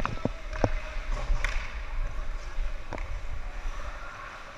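Ice hockey play on an indoor rink: a few sharp clacks of sticks and puck on the ice, spaced out, over a steady low rumble.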